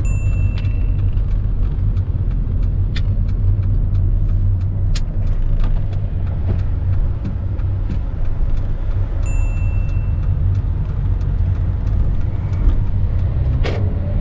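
Steady engine and road rumble inside a car's cabin while it is being driven. There are a few sharp clicks, and two short high beeps, one at the start and one about nine seconds in.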